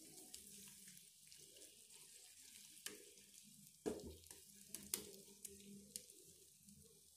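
Faint sizzling of an egg and vegetable mixture frying in a non-stick pan, with a handful of light knocks and scrapes from a wooden spatula spreading it out. The clearest knock comes about four seconds in.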